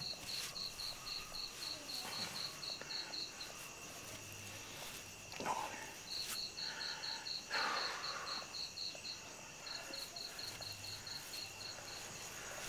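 Insects chirping in a steady high pulse of about four chirps a second, over a constant high insect drone; the chirping stops for a couple of seconds in the middle, then resumes. Two brief louder rustling noises come midway.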